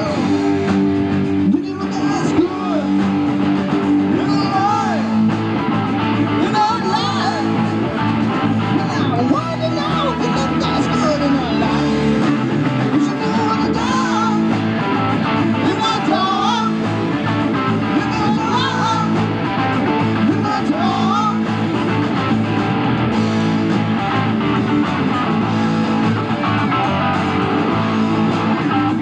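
Live rock band playing a song: electric guitars, bass guitar and a Ludwig drum kit, with a lead line of bending notes over the top.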